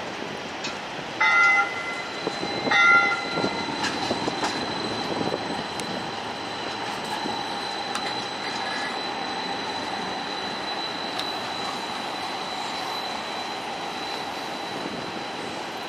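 QLine battery-electric streetcar sounding its horn in two short blasts, about a second and about three seconds in. It then rolls past close by with a steady high whine.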